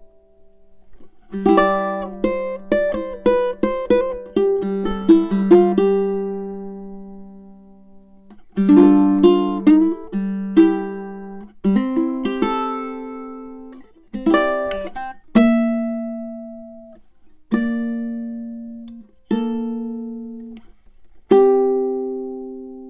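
All-Tasmanian-blackwood tenor ukulele with low-G strings, played fingerstyle: two quick phrases of plucked notes, then four single chords, each left to ring out and fade.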